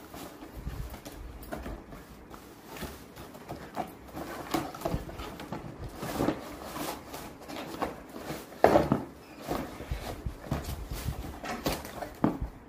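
Long cardboard box being handled and opened: scraping and rustling of cardboard and tape, with irregular knocks and one louder thump a little under nine seconds in.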